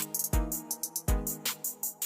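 Background electronic music with a heavy bass drum beat and fast hi-hats.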